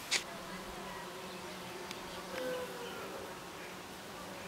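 Flying insects buzzing steadily as a low hum, with one short sharp click just after the start.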